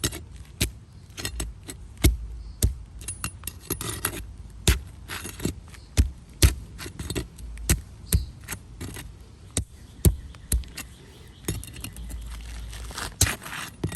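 A pry bar working under tar-sealed asphalt shingles: irregular sharp cracks, clicks and scrapes as the bar breaks the seal strip. Each crack is the bar scooping up the matting of the shingle above, a sign of shingles so strongly adhered that they tear rather than release.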